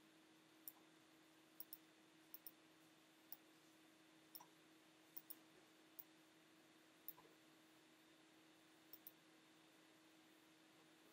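Faint, irregular clicks of a computer mouse, about a dozen, some in quick pairs, over a faint steady hum.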